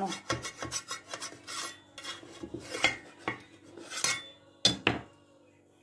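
Scraping, rubbing and light clicks against a round baking pan as a baked pie is loosened and worked out of it, with one sharp knock near the end.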